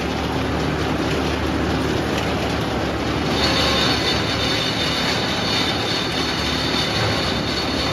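Sawmill running and sawing a long red oak log: a steady mechanical drone with an engine hum underneath. A high-pitched whine joins about three and a half seconds in and holds.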